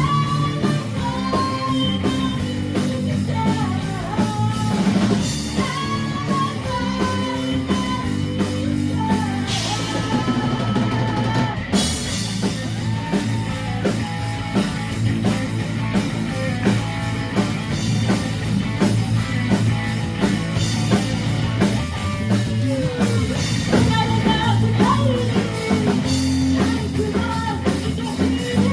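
Rock song played by a band: a singing voice over electric guitar and a drum kit, running steadily and loud, with a stretch of dense cymbal wash about ten seconds in.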